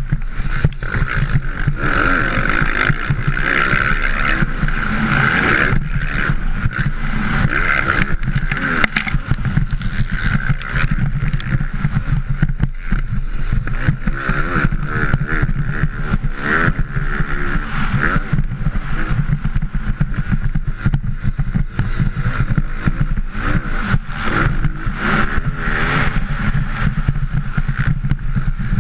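Motocross dirt bike engines racing on a track, the revs rising and falling repeatedly as the throttle opens and closes through turns, heard from a helmet-mounted camera.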